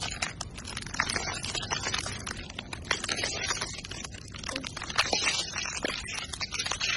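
Thin ice cracking under a boot's weight: a dense, irregular run of sharp snaps and crackles as cracks spread outward from the foot.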